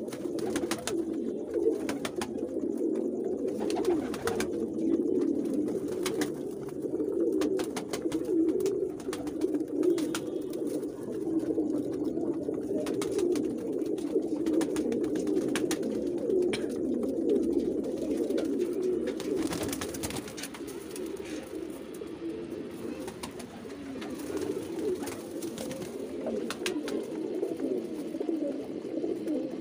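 A flock of domestic high-flyer pigeons cooing continuously, many birds overlapping in a steady low murmur, with scattered light clicks.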